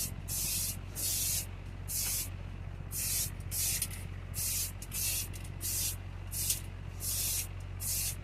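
Spray paint hissing in many short, quick bursts, about one or two a second, as yellow paint is applied in passes. A fan hums steadily underneath.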